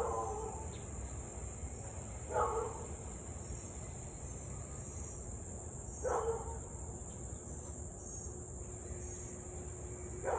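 A husky barking, four single barks a few seconds apart, over a steady high buzz of insects.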